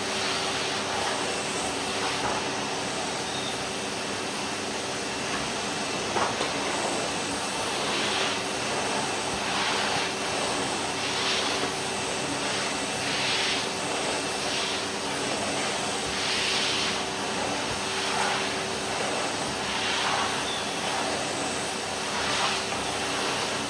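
Vacuum cleaner motor running steadily: a constant rushing whoosh over a steady hum, its hiss swelling and easing every couple of seconds. A short knock comes about six seconds in.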